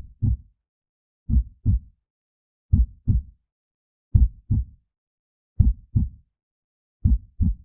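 Slow heartbeat sound effect: paired low thumps, lub-dub, repeating evenly about every one and a half seconds, with silence between beats.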